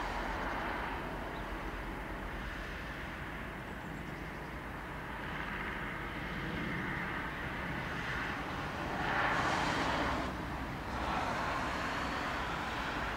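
Steady outdoor rumble of distant vehicle traffic, with a louder passing vehicle swelling and fading about nine to ten seconds in.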